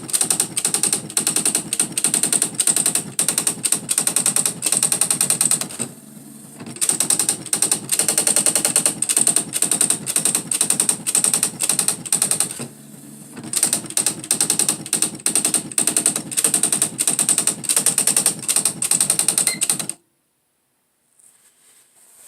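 Smith Corona SE 200 electronic typewriter printing its self-demo text on its own, its print mechanism striking in a rapid, machine-gun-like stream. It types in three long runs separated by brief pauses, then stops abruptly near the end.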